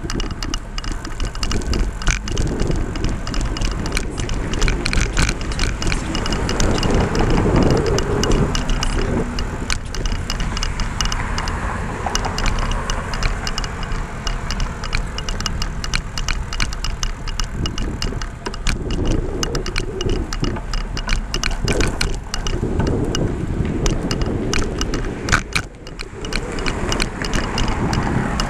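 Steady road and wind noise from riding a bicycle along a highway, with motor traffic going by and frequent small rattling clicks. The loudest swell comes about seven seconds in, with another near twenty seconds.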